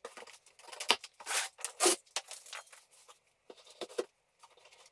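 Packing tape on a cardboard box being slit with a small blade: a string of short scraping rips, the loudest about two seconds in.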